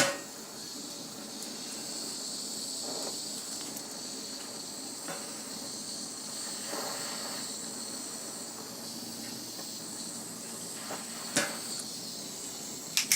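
Small soldering torch flame hissing steadily while it heats brass to melt electrical solder into the joint. A couple of faint knocks sound near the end.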